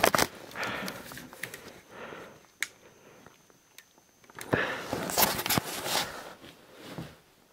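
A man breathing hard and sniffing in the cold, in several noisy breaths, with two sharp clicks in the middle and a faint high whine between them.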